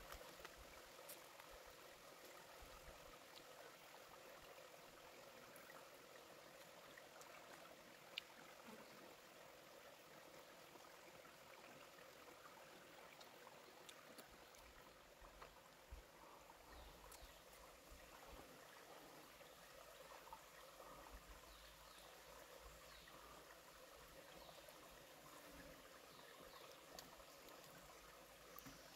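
Near silence with faint, steady trickling water and a few small clicks, the sharpest about eight seconds in.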